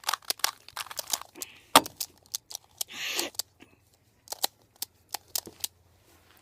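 Plastic twisty puzzle being turned fast by hand in a speed-solve: quick, irregular clicks and clacks of the layers snapping round.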